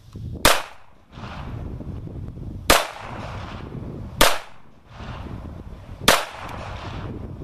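CZ 82 pistol in 9x18 Makarov firing four single shots, spaced about one and a half to two seconds apart, each followed by a short echo.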